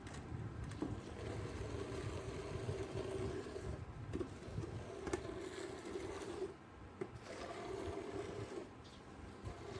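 Goat milk streaming into a pail, in runs of about a second with short breaks, over a low rumble.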